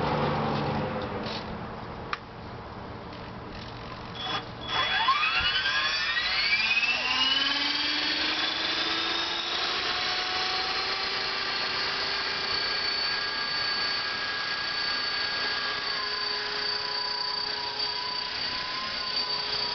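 BlueRay 450 PE RC helicopter spooling up: a click about two seconds in, then from about five seconds in the motor and rotor whine rises in pitch over several seconds and settles into a steady high whine.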